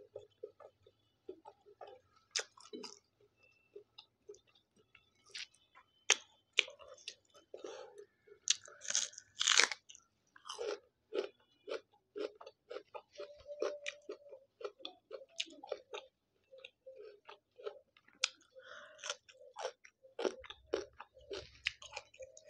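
Close-miked chewing of a mouthful of rice and meat, full of wet mouth clicks and smacks, with a louder crunch about nine seconds in.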